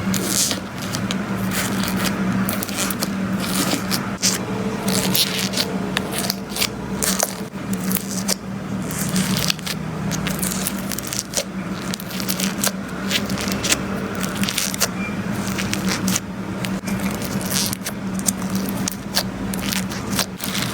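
Slime being squeezed and worked by hand, giving a dense run of small irregular crackles, pops and sticky scraping sounds.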